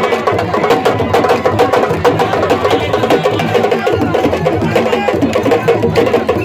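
Loud percussion music: fast, steady drumming with many sharp, rapid strikes.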